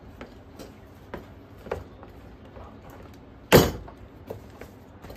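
Hollow plastic spare wheel of a kids' electric ride-on jeep knocking and clicking against the jeep's plastic body as it is pushed into place, with one loud knock about three and a half seconds in.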